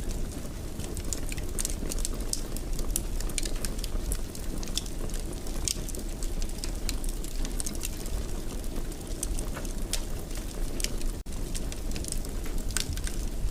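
Fireplace fire crackling, with frequent irregular sharp pops over a steady low rumble of the flames. The sound cuts out for an instant about eleven seconds in.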